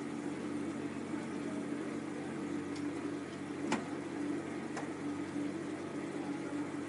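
Power liftgate of a 2007 GMC Yukon Denali closing over a steady low hum, ending in a sharp latch click a little under four seconds in, with a fainter click just before it and another about a second after.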